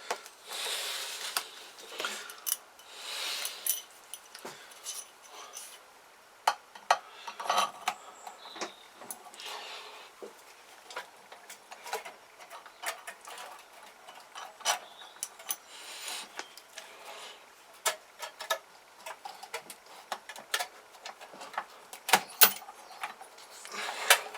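Irregular metallic clicks, clinks and light knocks, with some brief scraping, as the cylinder head and its bolts are handled and fitted onto a Kawasaki GPZ500S engine.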